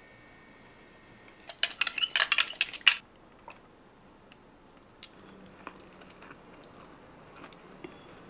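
A quick run of sharp clinks, ice and a straw knocking against a drinking glass, lasting about a second and a half; a few faint ticks of tableware follow.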